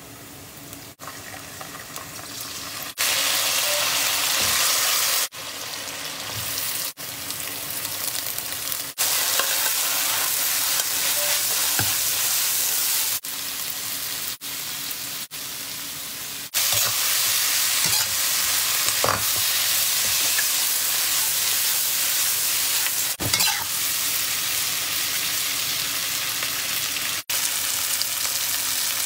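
Hot oil sizzling in a wok as sauces and then sliced potatoes, onion and celery are stir-fried, with a few light knocks of the spatula. The sizzle cuts off and comes back at a different loudness several times.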